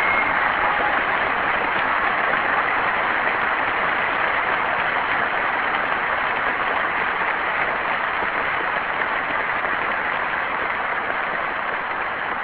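Audience applauding steadily, easing off gradually near the end.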